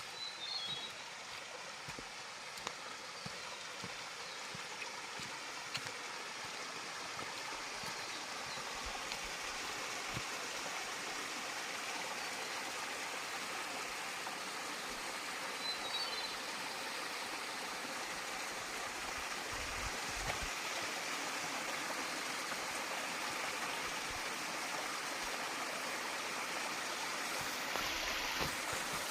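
Small waterfall and its stream: steady rushing, splashing water that grows gradually louder.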